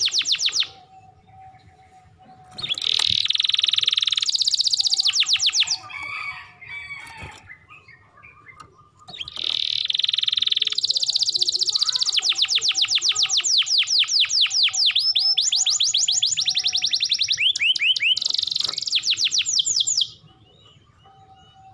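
Canary singing: long phrases of fast trills and rolls, with a short break about a second in and a quieter spell of scattered chirps around six to nine seconds in, then a long run of trills that stops about twenty seconds in.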